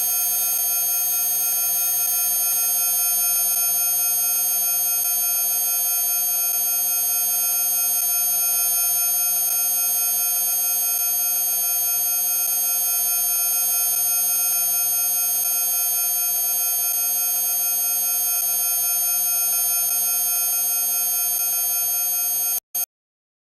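A steady electronic drone of several held tones, unchanging in level, that cuts off suddenly near the end.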